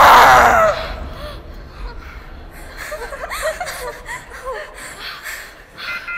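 A loud burst of noise with shouting voices through the first second, then scattered voices and laughter in the hall. Near the end a pulsing electronic alarm-like beeping begins.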